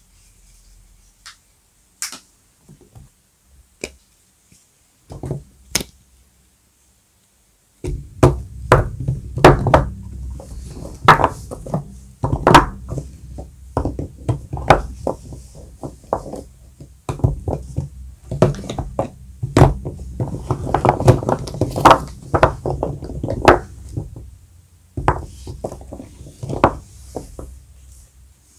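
Soap bars being unpacked and handled: scattered light clicks, then a busy run of knocks and thuds as the bars and their packaging are set down on a hard surface.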